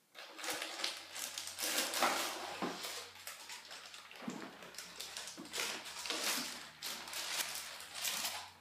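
Plastic bag and cardboard packaging rustling and crinkling, with light knocks of handling, as the aquarium filter box is unpacked.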